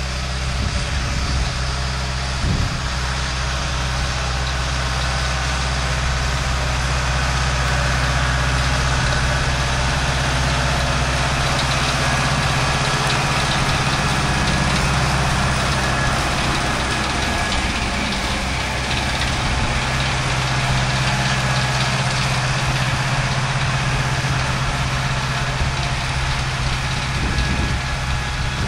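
Ford 6640 tractor's four-cylinder diesel engine running steadily under load as it pulls and drives a rotary hay tedder across the field.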